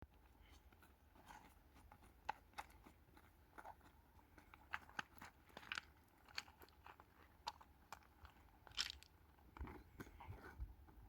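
Faint, irregular crunching clicks, a few a second, over a low rumble.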